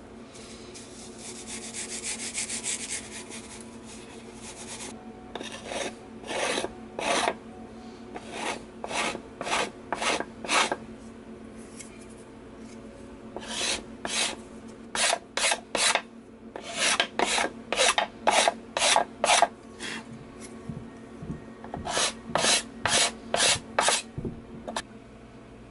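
Hand abrasive strokes on wood: an abrasive tool rubbed back and forth along the edge of a small wooden box frame. It comes in three runs of quick scraping strokes, about two a second, with short pauses between. Near the start there is a soft rustle of wood shavings being brushed off.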